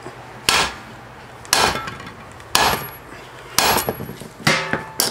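Hammer striking the steel core of a microwave oven transformer, six sharp blows about a second apart with the last two closer together, some with a short metallic ring. The blows are meant to crack the welds that join the two halves of the laminated core.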